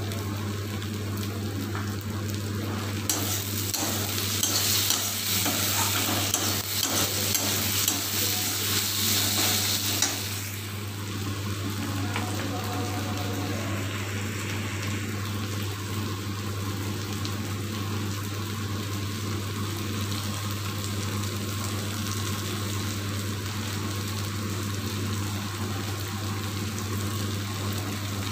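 Chopped onions and tomatoes sizzling in hot oil in a metal kadai, stirred and scraped with a metal spatula. The sizzle grows louder and brighter from about three seconds in until about ten seconds in, over a steady low hum.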